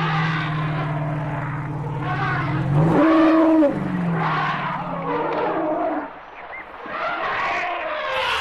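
Elephant vocalising: a long, low, steady call that rises about three seconds in to a louder, higher blast lasting under a second, then drops back, with rough, harsh calls layered over it.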